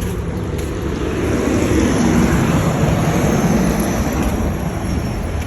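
A vehicle passing by. Its noise swells to a peak about two seconds in and then fades.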